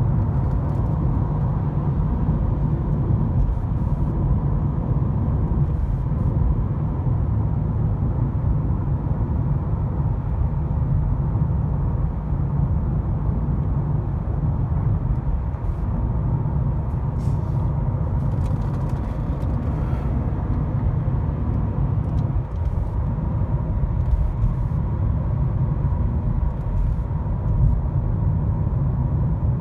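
Steady in-cabin rumble of a Mercedes-Benz W211 E270 CDI cruising at motorway speed: low road and tyre noise mixed with the drone of its OM612 five-cylinder diesel engine.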